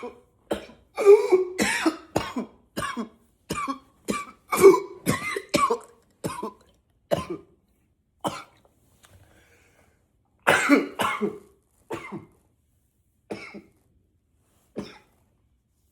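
A man's coughing fit that he can't stop: rapid runs of short, harsh coughs for the first seven seconds or so, a brief pause, another loud burst of coughs about ten seconds in, then single coughs spaced further apart toward the end.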